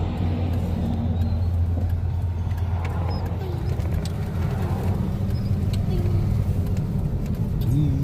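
Car engine and road noise heard from inside the cabin while driving, a steady low hum.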